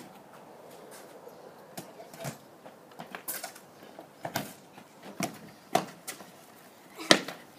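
A football being kicked and dribbled on patio slabs, with scattered irregular thuds of feet on the ball and trainers scuffing the paving; the sharpest knock comes near the end.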